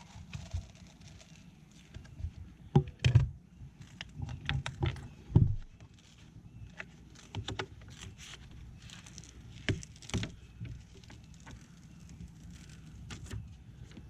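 Irregular knocks, clicks and rustling from hands working on a boat deck as adhesive-backed foam deck pads are peeled and pressed down, with a cluster of louder bumps about three to five seconds in and another sharp knock about ten seconds in.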